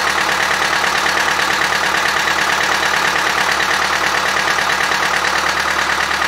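Diesel engine of an old Fendt tractor running steadily just after a hard cold start in frost.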